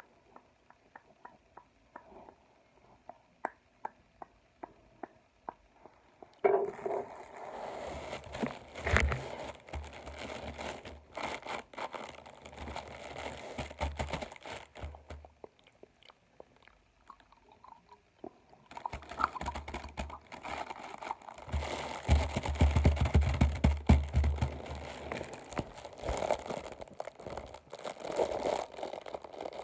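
Chewing and crunching of chocolate close to the microphone. A few faint mouth clicks come first, then two long bouts of loud chewing with a quieter pause of a few seconds between them.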